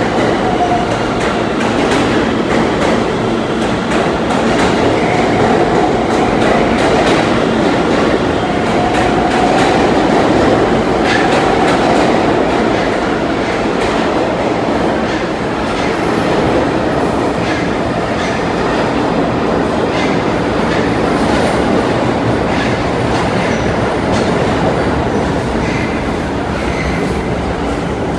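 New York City subway trains running through an underground station: a steady loud rumble of steel wheels on rail, clicking over the rail joints. A faint wheel squeal rises and fades at the start and again about a third of the way through.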